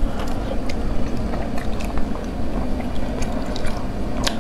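Close-miked eating of sea snails in sauce: wet sucking and chewing with scattered sharp mouth clicks, over a steady low rumble.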